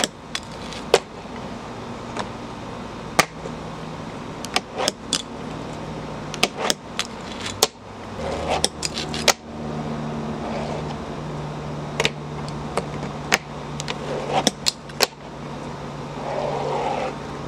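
A fingerboard being ridden and flipped on a tabletop: irregular sharp clacks of the little deck popping and landing, with a steady low hum underneath from about eight seconds in.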